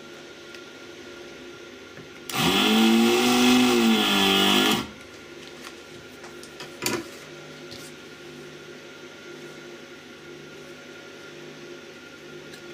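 Vacuum pump of an 80-watt desoldering iron running for about two and a half seconds, spinning up and then winding down, as it sucks molten solder out of the circuit board's through-holes. A steady faint hum sits underneath, and there is a single sharp click about two seconds after the pump stops.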